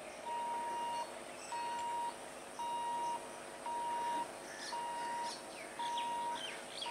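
An electronic beeper sounding one steady tone, on and off about once a second in even half-second beeps, six times. Birds chirp in the gaps over the second half.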